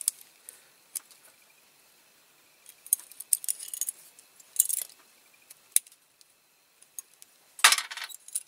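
Small metal clicks and clinks as the diecast baseplate of a Corgi Toys Fiat 2100 model, with its axles and wheels, is handled, in scattered light taps and short rattles. Near the end comes a louder clatter as the parts are set down.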